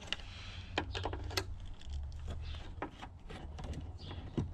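Light clicks and taps of screwdrivers working a small plastic screw cover and its Phillips screw in a car's trunk floor: a quick cluster of clicks about a second in and a few single ticks later, over a low steady rumble.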